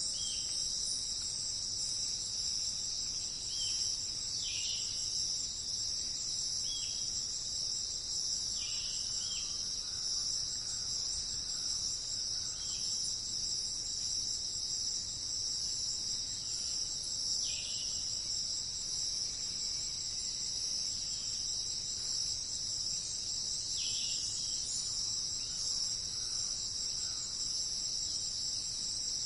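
Steady high-pitched chorus of insects in the forest, with short falling bird chirps every few seconds.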